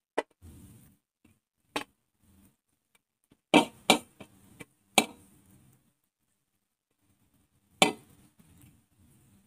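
Fried fish steaks dropped one at a time into a kadhai of boiling gravy, each landing with a short, sharp splash; about six at irregular intervals.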